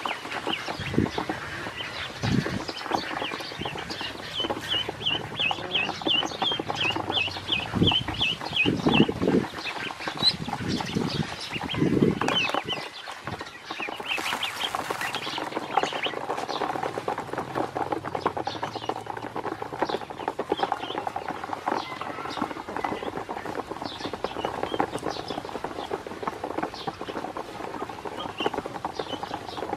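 Ducklings peeping, with a quick run of high chirps for several seconds early on and scattered chirps after. Through it come many small clicks and taps of their bills pecking feed off the bottom of a plastic basin.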